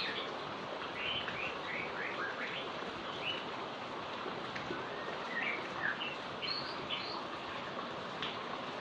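Heavy rain falling in a steady hiss, with small birds chirping in short, high calls throughout.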